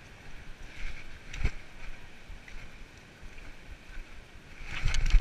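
Wind and handling noise on a body-worn action camera's microphone, with a sharp bump about a second and a half in and a louder cluster of bumps near the end.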